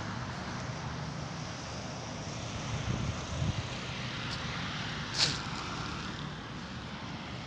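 Steady low rumble of outdoor background noise with a faint hum, two soft low thumps about three seconds in, and a brief sharp high sound a little after five seconds, the loudest moment.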